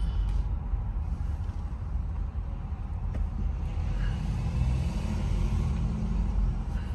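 A car being driven, heard from inside: a steady low rumble of road and engine noise.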